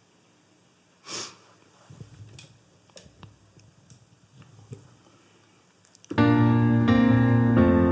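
A near-silent pause with a few faint clicks, then about six seconds in a digital piano starts playing sustained chords, loud and steady, opening a song.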